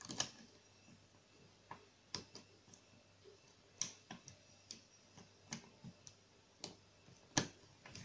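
Light, irregular metal clicks of a hook pick working the pins of a brass Arrone pin-tumbler cylinder lock held under a tension wrench, about ten clicks spread unevenly over the stretch.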